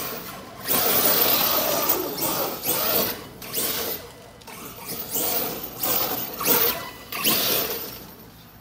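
Arrma Kraton 8S electric RC truck accelerating hard on loose dirt in a series of repeated bursts, its brushless motor whirring and its tyres spraying dirt, fading away near the end.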